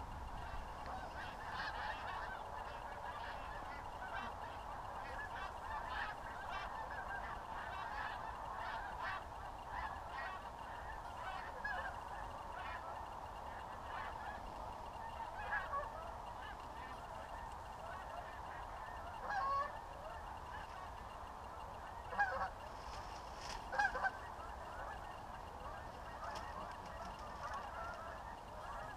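A flock of wild geese honking as they pass over, a continuous chorus of many overlapping calls, with a few louder single honks standing out in the second half.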